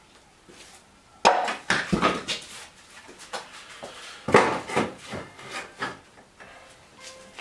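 A series of irregular knocks and clatter, hard objects being handled and set down, with a sharp knock about a second in and another burst of clatter about four seconds in; no saw motor is running.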